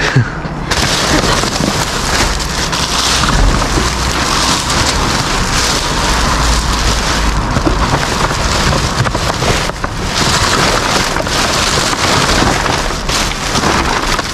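Clear plastic sheeting and plastic bags crinkling and rustling, with paper rustling among them, as hands dig and push through a bin full of them. The crackling is dense and continuous, starting under a second in.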